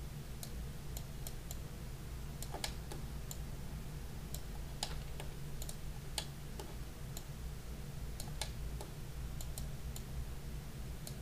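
Scattered clicks of a computer mouse and keyboard at irregular intervals, over a steady low hum.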